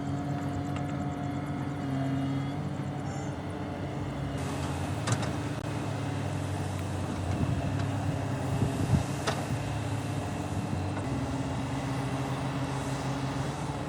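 Heavy diesel machinery running steadily: an excavator and dump truck engines at work, with two sharp clanks and some rougher rumbling in the middle.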